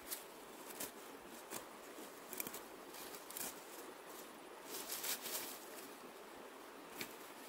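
Leafy plants rustling and crackling as their stems are pulled and picked by hand, in irregular short crackles.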